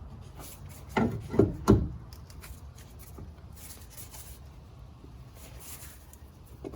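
A CV axle being forced into place: three quick knocks about a second in, then faint scraping and rubbing of metal parts being worked together.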